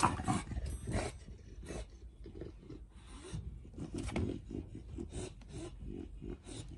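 A bulldog breathing noisily in quick, even breaths about three a second, with brief rubbing and scraping sounds now and then.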